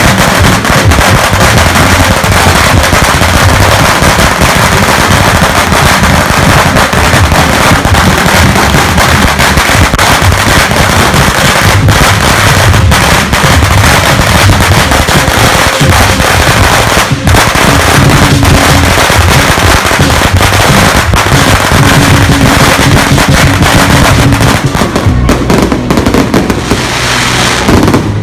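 Long strings of Chinese New Year firecrackers going off in a continuous, very loud rapid crackle of bangs, with music underneath.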